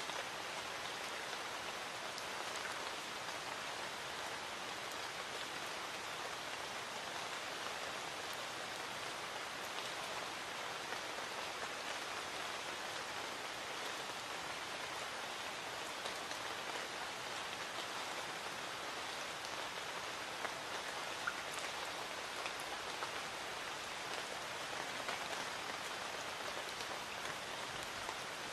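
Light rain falling steadily: an even hiss of rain with scattered small drop ticks.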